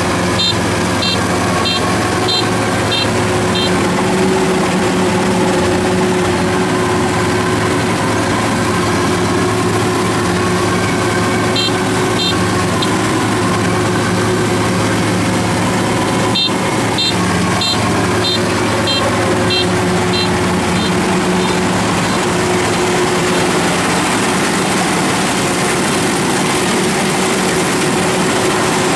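Engine of a tracked rice combine harvester running steadily under load. A repeating high electronic beep, about two a second, sounds at the start and again around the middle, with a single sharp click partway through.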